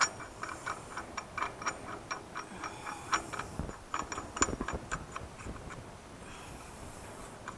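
Light metallic clicking as a threaded steel collar is twisted hand-tight onto a hitch-ball plate under a trailer coupler, about three or four irregular clicks a second at first, thinning out over the last couple of seconds.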